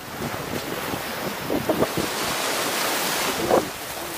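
Small sea waves washing up a sandy beach and foaming in the shallows, with wind buffeting the microphone. A few short louder sounds stand out, the loudest about three and a half seconds in.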